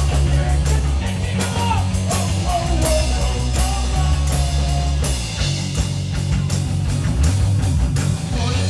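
Live rock band playing: electric guitar, bass and drum kit at a steady beat, with a voice singing over them.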